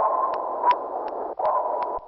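Submarine sonar pings: a steady tone over hissing noise, starting afresh about every one and a half seconds, twice here, with scattered clicks.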